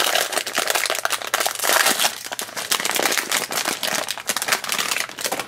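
Foil blind bag crinkling in a steady run of irregular crackles as hands handle it and pull it open.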